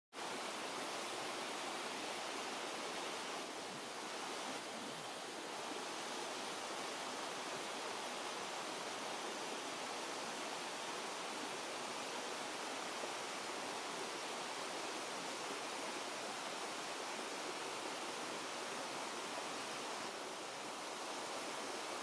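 Small mountain waterfall rushing steadily, a constant even hiss of falling water.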